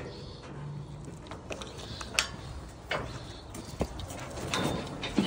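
A few sharp clicks and knocks, about four spread over a few seconds, over a low background rumble, as cattle are handled and dosed in a metal cattle crush.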